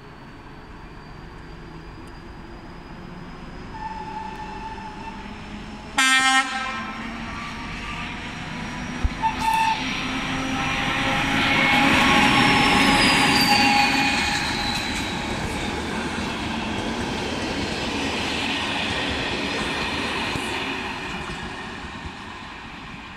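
A train horn gives one short, loud blast about six seconds in. Then a Czech Railways diesel locomotive hauling a passenger train runs past: engine and wheel-on-rail noise swell to their loudest about halfway through and fade as the train pulls away. A high whine drops in pitch as it goes by, and a pair of short sharp sounds comes about three seconds after the horn.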